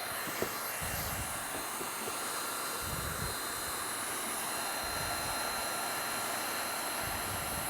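Hot-air heat gun blowing steadily as it welds a thermoplastic roofing membrane lap: an even hiss with a faint high whine.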